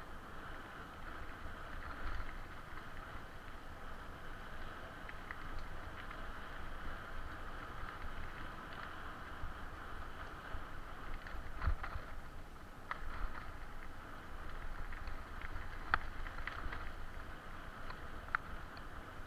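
Bicycle rolling fast along a dirt forest trail: steady tyre and rattling noise with wind rumble on the microphone, and a few sharp knocks from bumps in the second half.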